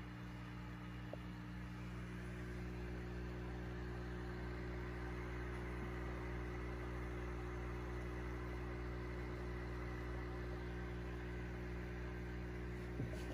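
Aquarium filter running: a steady low electrical hum with a faint hiss. There is one brief click near the end.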